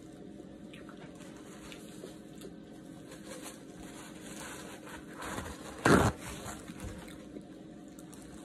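Eating and handling noises: plastic-gloved hands pulling apart a rotisserie chicken, with soft crinkles and squishes, and one loud, brief noise about six seconds in. A faint steady hum runs underneath.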